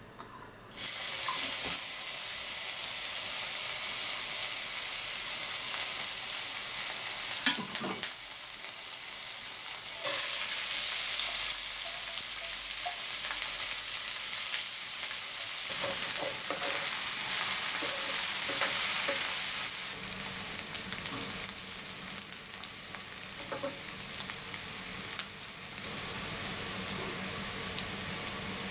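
Ginger hitting hot oil in a frying pan, starting to sizzle suddenly about a second in. The sizzling surges again about ten seconds in, and diced green bell pepper frying in the oil is stirred with a metal spatula scraping the pan.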